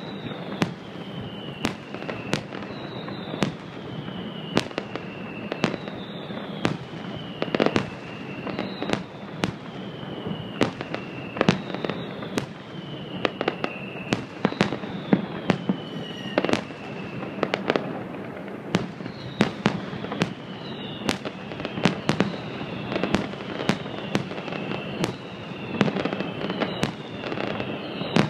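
Fireworks display: aerial shells bursting in a rapid, continuous series of sharp bangs, with whistles that fall in pitch repeating every second or two.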